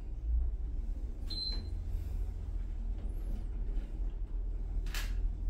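Stannah passenger lift car travelling upward in its shaft: a steady low rumble and hum of the moving car, with a brief high tone about a second in and a sharp click near the end.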